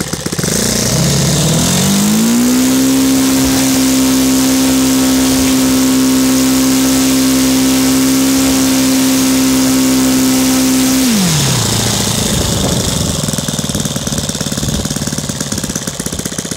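Saito FA-180 four-stroke model aircraft engine, converted to gasoline spark ignition and turning an APC 18x6 wide propeller, throttled up from idle over about two seconds to full speed. It holds a steady pitch at about 7,900 RPM, then is throttled back around eleven seconds in and settles to idle.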